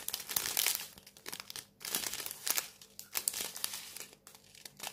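Small zip-lock plastic bags of diamond-painting rhinestone drills crinkling as they are handled, in irregular bursts of rustling.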